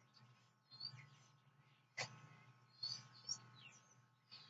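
Faint birds chirping in short calls, with one sharp click about two seconds in, over a low steady hum.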